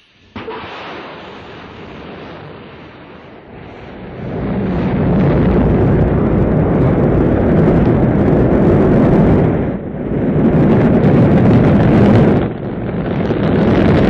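Sci-fi spaceship take-off sound effect: a deep, noisy rumble that starts low about half a second in, swells to full strength around four seconds, and keeps going with two brief dips, near ten and twelve and a half seconds.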